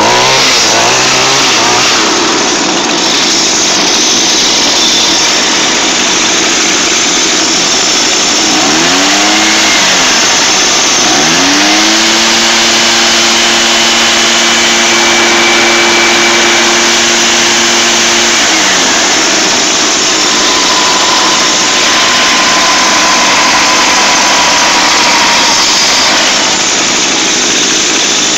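Small two-stroke engine of Echo outdoor power equipment running loudly under a constant rushing noise. It is blipped twice about nine seconds in, then revved up and held for about seven seconds before dropping back.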